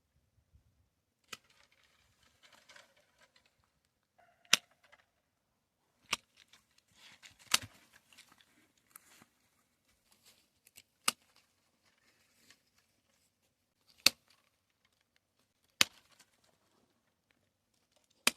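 About eight sharp snaps or clicks at irregular intervals, a second or more apart, with soft rustling between them.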